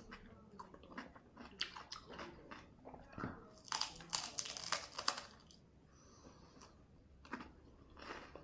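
A person biting and chewing crunchy food, a run of crisp crunches that is densest about four to five seconds in.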